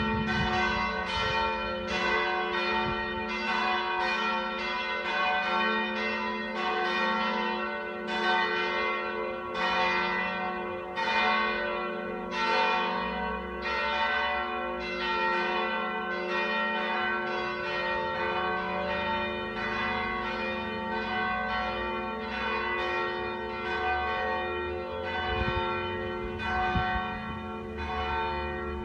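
Italian church bells ringing in a continuous peal: strike follows strike about twice a second, and the tones of several bells ring on over one another.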